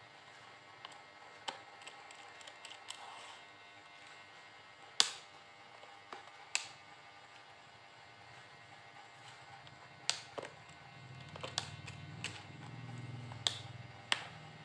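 Sharp plastic clicks and snaps, about nine of them at irregular intervals, as the bottom cover of a Dell Latitude 7390 laptop is unscrewed and pried loose; the loudest snap comes about five seconds in. A low hum swells in the last few seconds.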